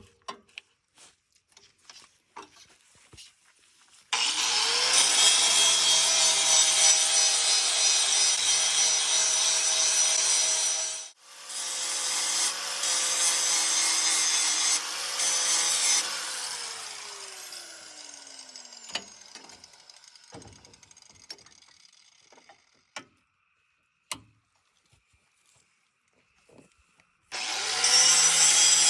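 Power grinder sharpening the knife sections of a sickle bar mower. The motor spins up about four seconds in and grinds steadily on metal for about twelve seconds, with a brief break partway. It then coasts down with a falling whine, and starts up again near the end.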